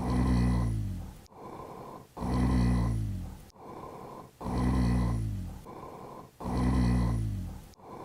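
Recorded rhonchi, an abnormal lung sound: a low-pitched snoring sound on each of four breaths about two seconds apart, with quieter breathing between. Rhonchi are the sign of secretions in the larger airways.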